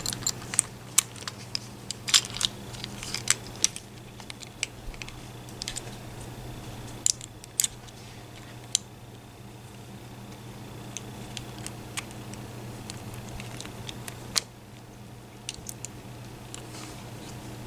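Irregular small metallic clicks and taps of lock picks, padlock and handcuffs being handled, busiest in the first few seconds and sparser afterwards, over a steady low hum.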